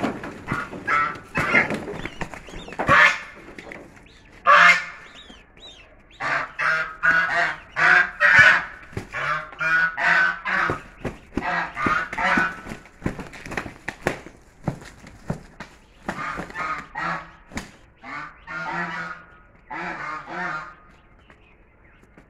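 Chinese geese fighting: loud, harsh honking repeated in rapid runs, mixed with the beating of wings. The calls thin out and grow quieter near the end.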